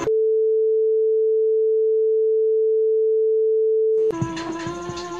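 Censor bleep: a single steady pure electronic tone, fairly loud, held for about four seconds and cut off sharply, blanking out the speech under it. Synth music with a held note comes back near the end.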